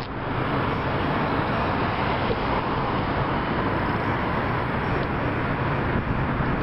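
Steady street and traffic noise picked up by a small camera's microphone, an even hiss-like rush with a low rumble and no distinct events.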